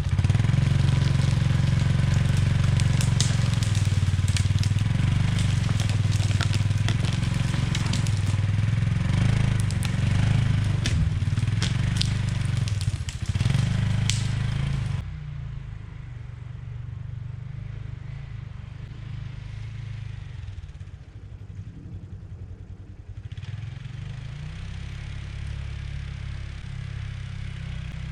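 ATV engine running under load with crackling and snapping of brush and wood, then about fifteen seconds in it drops suddenly to a quieter steady idle.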